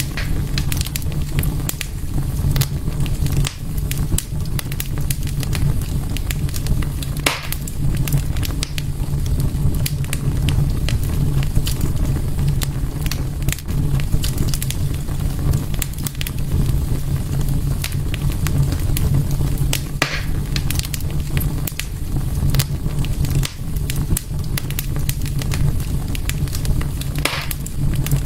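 Fire crackling in a fireplace: a steady low rumble with constant small crackles, and louder pops about seven seconds in, around twenty seconds in and near the end.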